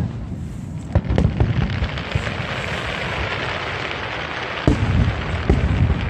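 Aerial fireworks going off. Several deep bangs come about a second in, then a dense crackle fills the middle, and more bangs follow near the end.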